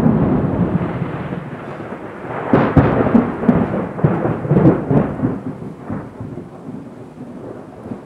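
Thunder: a loud peal that breaks suddenly at the start, a second run of crackling cracks about two and a half seconds in, then a rumble rolling away and fading toward the end.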